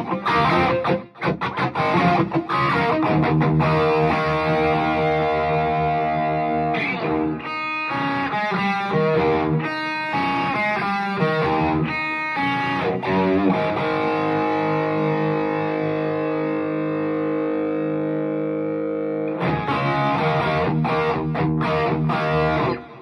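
Gibson Les Paul R9 electric guitar played through a 3rd Power Kitchen Sink amp, the guitar's volume rolled back a little for a more classic tone. Strummed chords open, a riff of separate picked notes follows in the middle, then a long ringing chord and more strumming that cuts off abruptly near the end.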